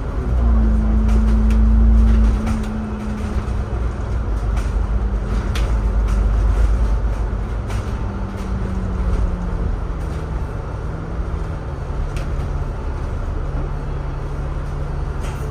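Double-decker bus running along a city street, heard from inside. A deep engine rumble is loudest in the first two seconds, under a steady drivetrain hum that sinks slowly in pitch as the bus eases off.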